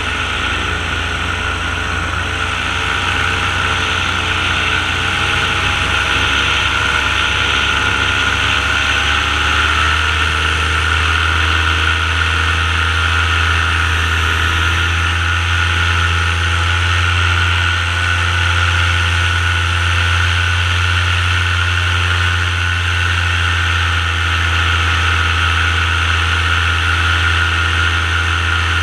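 Paramotor engine and propeller running steadily in flight, a loud, even drone whose pitch shifts slightly about ten seconds in.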